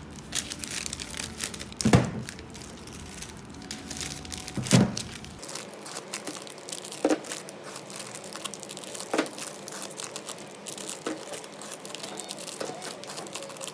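Crinkling and rustling of handled packaging with many sharp clicks, and two louder knocks about two seconds and about five seconds in.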